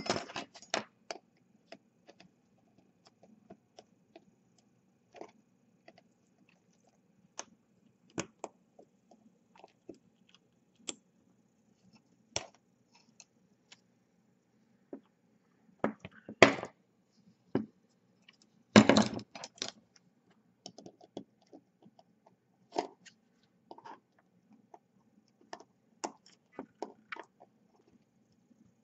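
Small metal hand tools clicking and scraping against a small brushless drone motor as it is pried apart. The clicks are scattered throughout, with two louder rattling scrapes about halfway through and a few seconds later.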